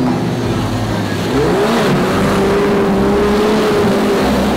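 Off-road vehicle's motor revving up about a second and a half in and then holding a steady high pitch, over the hiss of water thrown up by its wheels as it drives through a shallow river.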